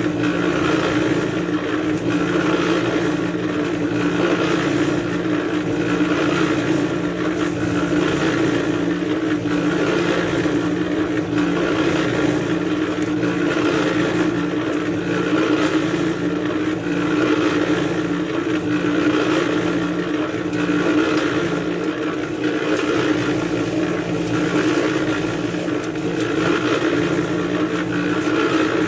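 Harbor Freight electric cement mixer running steadily, its motor humming as the drum turns and churns a batch of concrete.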